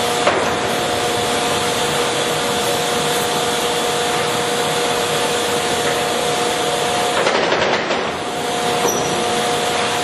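Monarch 20CM heavy-duty engine lathe running under power: a steady mechanical hum from the headstock and drive with two held tones. About seven seconds in, the sound briefly breaks up with some rattling, then settles back to steady running.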